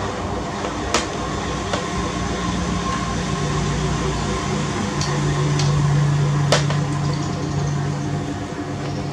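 A steady low hum, broken by about five sharp clicks and knocks of plastic, the strongest about six and a half seconds in, as a baby monkey and a kitten scramble over a plastic baby walker and pet carrier.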